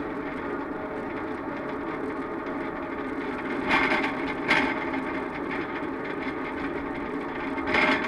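Steady mechanical drone of a Liebherr tower crane slewing, picked up through the jib the camera is clamped to. Short louder rattles come twice about halfway through and again near the end.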